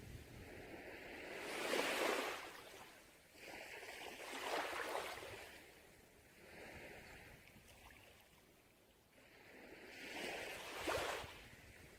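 Sea waves breaking and washing up a beach, swelling and falling away in about three surges, with a lull past the middle before the last one.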